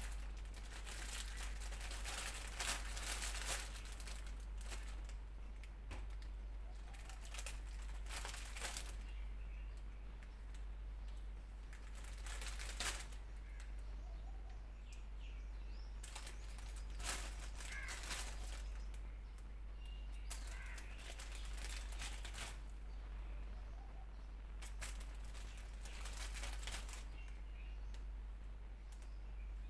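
Intermittent crinkling and rustling of a plastic produce bag and crisp lettuce leaves being handled and laid down, coming in short bursts every few seconds over a steady low hum.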